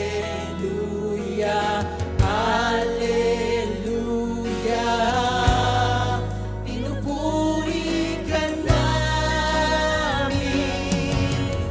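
A live worship band accompanies singers in a gospel-style Christian praise song, with sustained notes and occasional drum hits.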